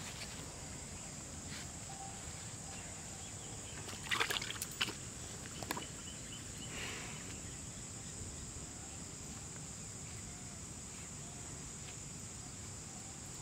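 Steady high insect drone over a low outdoor background, with a short burst of water splashing and sloshing about four seconds in and one more splash a little later.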